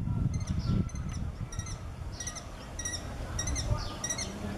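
Common kestrels calling: short, high calls repeated about once or twice a second, over a low rumble that is strongest in the first second.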